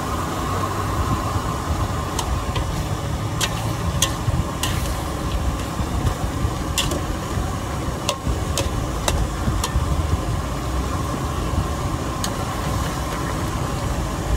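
Steady low rumble and noisy background ambience, with sharp clicks and clinks scattered through it.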